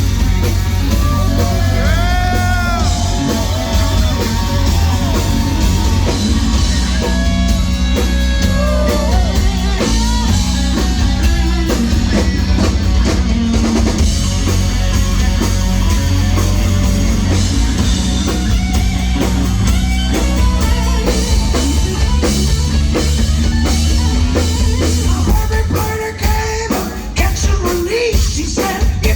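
Live rock band playing loud, with drum kit, heavy bass and electric guitar. A bending, wavering lead melody carries over the band, and the band thins out a few seconds before the end.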